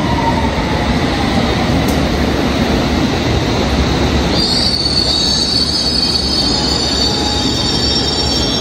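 London Underground Circle Line train running with a steady rumble on the rails. From about halfway through, its wheels squeal high and steady on the track.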